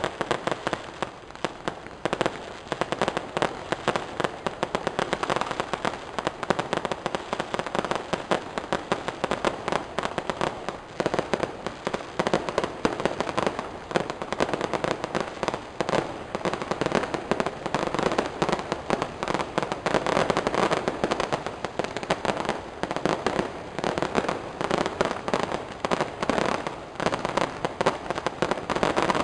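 Fireworks and firecrackers going off in a dense, continuous crackle of rapid sharp pops that never lets up.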